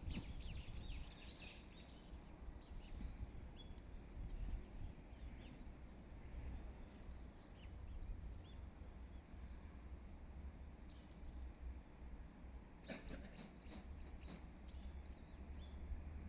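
Small birds chirping: quick bursts of high chirps in the first couple of seconds and again around 13 seconds in, with scattered single chirps between, over a steady low background rumble.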